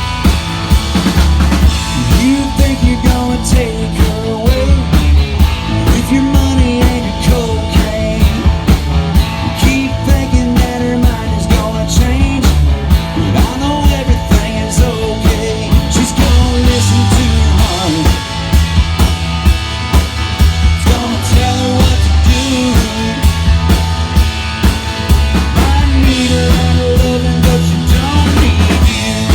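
Live band music: a drum kit keeps a steady beat under bass and guitars, with a wavering melody line over the top.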